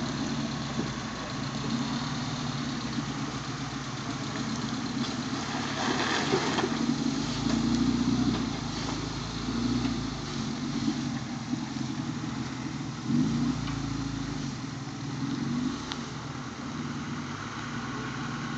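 Suzuki SJ413's 1.3-litre four-cylinder engine running at low revs as the 4x4 crawls down a steep rock descent, its note rising and falling with the throttle.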